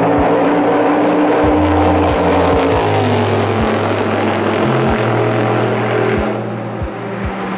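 Toyota Supra GT300 race car's V8 engine running hard, its note steady at first and then falling in pitch about three seconds in.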